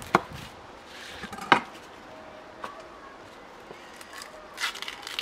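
Chef's knife cutting half an onion on a wooden chopping board, with two sharp knocks of the blade on the board about a second and a half apart and a few lighter taps after. Near the end there is a short papery crackle of onion skin being peeled by hand.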